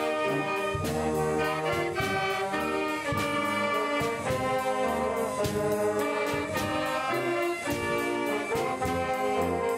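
Brass band music, trumpets and trombones playing sustained chords over a steady percussion beat.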